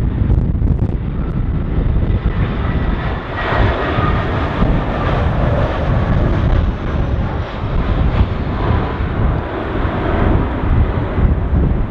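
Airbus A320's CFM56 jet engines on short final and into the flare, a steady rumble with a faint engine whine rising through it a few seconds in. Gusty wind buffets the microphone throughout.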